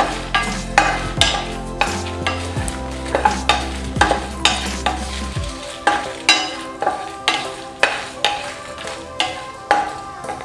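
Wooden spatula stirring and scraping dry whole spices (red chillies, coriander seeds, cumin, fennel) around a stainless steel pan as they dry-roast, in repeated strokes about two a second.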